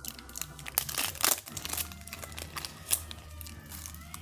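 Foil wrapper of a 2006 Bowman Chrome football card pack crinkling and tearing as it is pulled open by hand. Sharp crackles run through the first three seconds, then it quietens.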